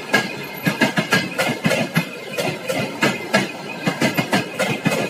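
Passenger coaches passing close by, their wheels clattering over the rail joints in quick, uneven clicks, with a steady high tone running underneath.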